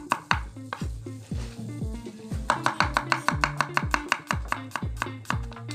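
Cleaver slicing shallots and garlic on a wooden cutting board in quick, regular chops, over background music with a steady beat and bass line.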